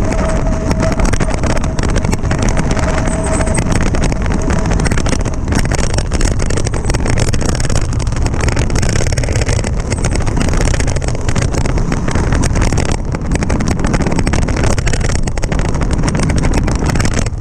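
Mountain bike riding fast down a dirt trail: wind rushes over the action camera's microphone, while the tyres roll and the bike rattles over the rough ground in a dense, steady noise. A thin steady whine sounds for the first three seconds or so.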